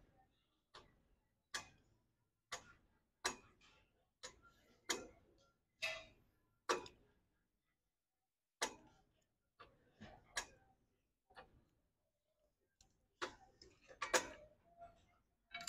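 Cable machine's weight stack clinking with each rep of a single-arm cable exercise: a regular series of light metal clinks, nearly one a second, with two short pauses and a busier cluster near the end as the handle is let down.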